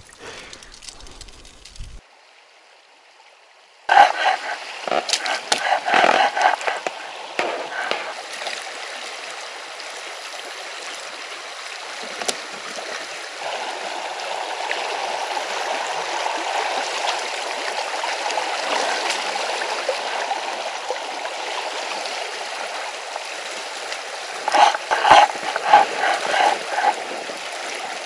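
River water rushing and gurgling past a small inflatable boat drifting through a current, with louder splashing bursts about four seconds in and again near the end.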